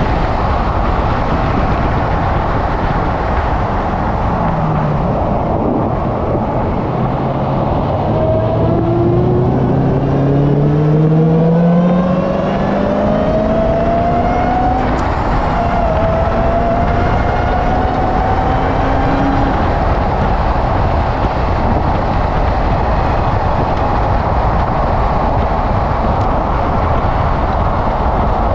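Car at track speed, heard mostly as steady wind and road noise over its engine. In the middle the engine pitch climbs several times as the car comes out of a slow, tight turn and accelerates again.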